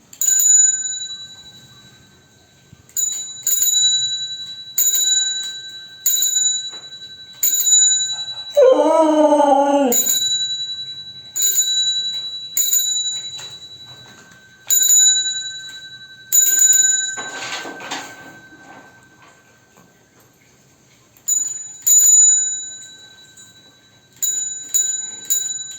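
A bicycle bell is rung over and over, about twenty single or double dings, each ringing out for about a second. A dog answers with one long, wavering cry about a third of the way in, and a rougher cry about two-thirds in.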